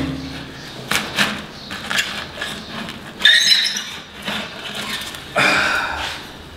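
Metal hooks scraping and knocking against the iron tandoor as a cooked naan is pried off the hot inside wall and lifted out. Light knocks come first, then a harsher scrape about three seconds in and another near the end.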